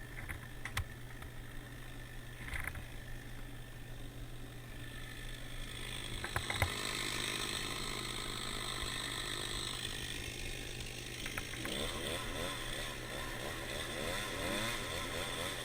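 Chainsaw boring into a date palm trunk to set the felling hinge, heard at a subdued level; a few sharp clicks early on, then the saw's sound builds and its pitch wavers in the last few seconds as it cuts.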